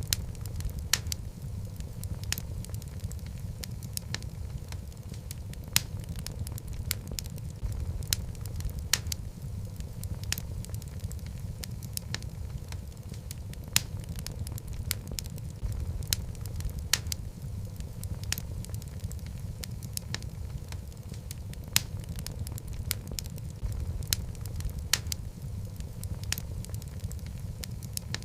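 Wood logs burning in a fireplace: a steady low rumble of the flames with frequent sharp crackles and occasional louder pops at irregular intervals.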